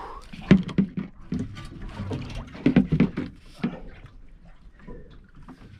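Irregular knocks, thumps and clatters on a small fishing boat's deck as a freshly landed gold band snapper is brought aboard and handled; the loudest knocks come about half a second in and around three seconds in.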